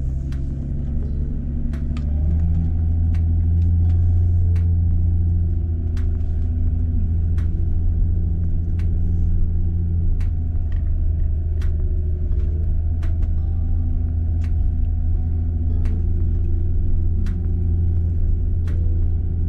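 Motorhome engine and road rumble while driving: a steady low drone whose pitch steps up about two seconds in, with faint ticks or knocks about once a second.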